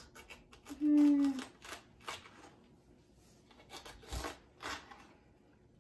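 Handling sounds of a whole cabbage and a knife on a kitchen counter: scattered rustles and scrapes, with a low knock a little past four seconds. A short hummed voice sounds about a second in.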